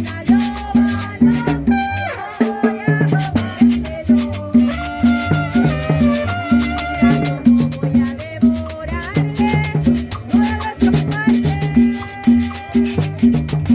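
Salsa music with a steady beat, bass and shaken maracas.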